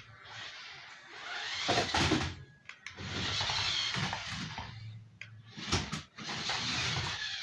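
A radio-controlled car driven in short bursts: several swells of motor and tyre noise, each a second or two long, with a couple of sharp knocks between them.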